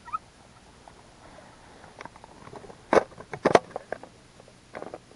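Plastic ice-fishing tip-up being handled and set down in the snow over an ice hole: scraping and rustling with scattered clicks, and two sharp knocks about three seconds in.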